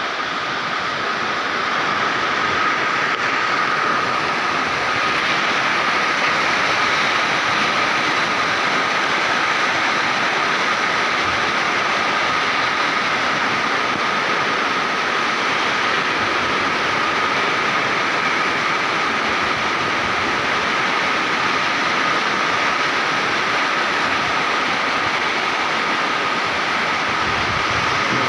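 Storm wind blowing hard at dawn: a loud, steady rushing roar with no let-up, and a faint steady whistle-like tone running through it.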